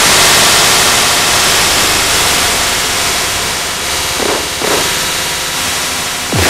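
Loud, harsh static-like noise from the soundtrack, a dense hiss across all pitches. Two quick swooping sounds come about four seconds in, and a falling swoop begins right at the end.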